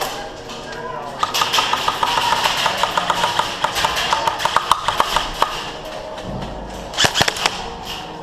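Airsoft gun firing a rapid string of sharp popping shots, several a second, from about a second in until about five and a half seconds, then a few more shots near the end.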